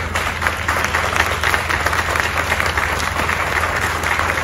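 Crowd applauding, a steady dense clapping with a low hum underneath.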